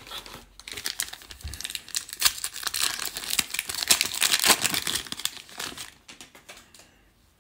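Foil wrapper of a Panini Prizm trading card pack crinkling as it is handled and torn open, an irregular run of crackles that dies away near the end.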